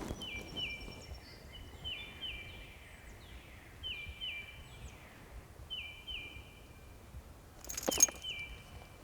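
Songbirds singing: a short high two-note phrase, each note dropping in pitch, repeated over and over, with fainter downward-sliding calls in between. One short, sharp noise stands out near the end.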